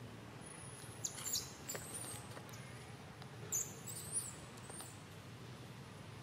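A young monkey squeaking: short, very high-pitched squeaks in two brief clusters, about a second in and again about three and a half seconds in, with a few faint clicks.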